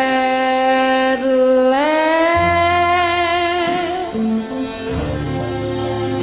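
Background music: a slow song with long held notes that slide upward, over guitar, with a bass line coming in about two seconds in.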